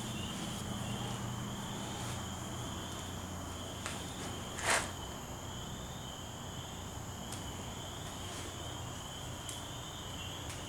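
Steady insect chirping in the background over a low hum, with a few faint ticks and one sharp click about four and a half seconds in.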